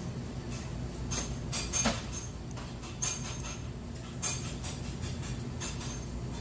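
Steady low hum of shop background noise with scattered clinks and clatters, the loudest about two seconds in.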